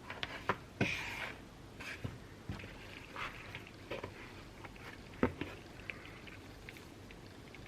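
Close-miked eating sounds: biting and chewing bagels with cream cheese, a string of soft wet clicks and squishes with the loudest about a second in and just after five seconds.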